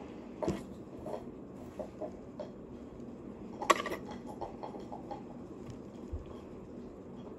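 Scattered light taps and clicks, one sharper click about three and a half seconds in, over a steady low background noise.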